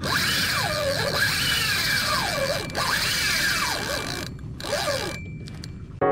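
Spinning reel's drag buzzing as line is pulled off it, its pitch swooping up and down several times over a steady hiss, with brief cut-outs near the end.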